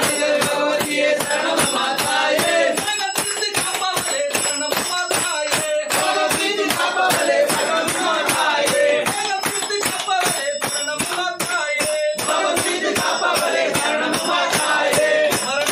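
Devotional song: a voice singing over a steady jingling percussion beat of about four strokes a second. The singing breaks off briefly about twelve seconds in.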